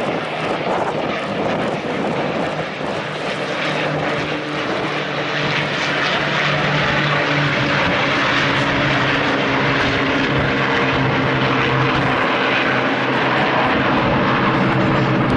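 Avro Lancaster bomber flying past with its four Rolls-Royce Merlin piston engines running, a steady multi-tone engine sound that grows louder about five seconds in and stays loud.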